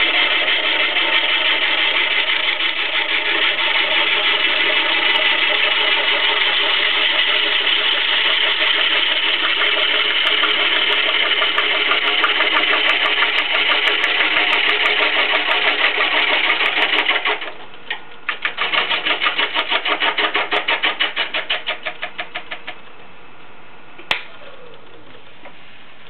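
Gouge cutting into a large log spinning on a wood lathe: a loud, steady rough cutting noise with a hum-like chatter. About 17 seconds in the cut stops and a rapid, even knocking follows for about five seconds and dies away, with a single sharp click near the end.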